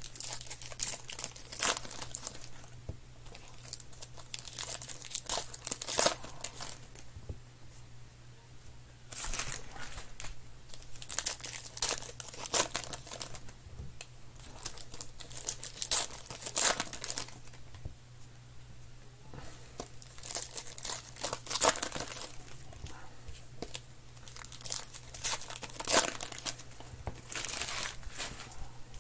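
Foil wrappers of Topps Heritage baseball card packs being torn open and crinkled by hand, in repeated bursts every few seconds.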